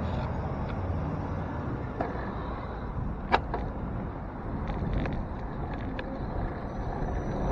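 City street traffic: cars passing with a steady noise of tyres and engines, and one sharp click about three seconds in.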